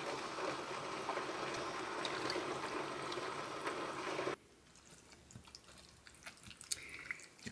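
Hot kimchi soup ladled over rice into a ceramic bowl: liquid pouring and splashing over a steady hiss. About four seconds in, this cuts off suddenly to near quiet, with a few light clicks of a spoon stirring in the bowl.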